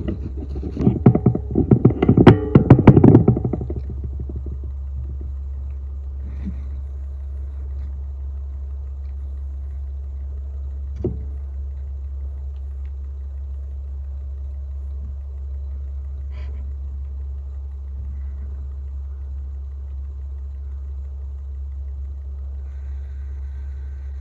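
Rustling and knocking of the camera being handled and set in place for about the first three seconds, then a steady low rumble with a few faint ticks.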